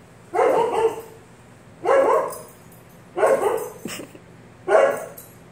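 A husky barking four times, about one bark every second and a half. Each is a short, pitched play bark given from a play bow.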